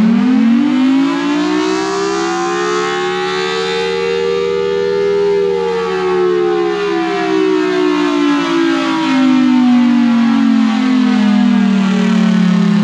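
Federal Signal Thunderbolt 1003 outdoor warning siren sounding a slow wail. Its pitch rises for about five seconds, then falls gradually over the next eight or so, and starts climbing again at the very end, with a steady lower tone beneath.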